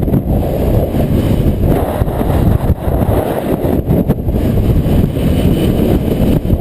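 A Yamaha 125 off-road motorcycle running, heard as a loud, steady rumble mixed with wind buffeting the microphone.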